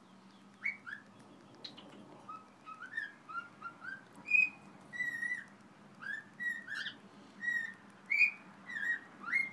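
A pet bird singing a whistled song of short chirpy notes, many sliding up or down in pitch, about two notes a second.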